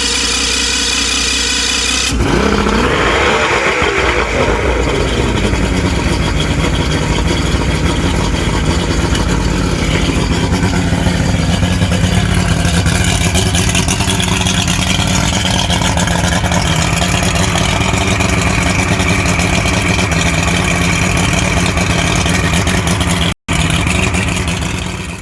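Older Mercury outboard motor running after its switch box (power pack) was replaced. About two seconds in the revs rise and fall back, then it settles into a steady idle, showing the motor now starts and runs.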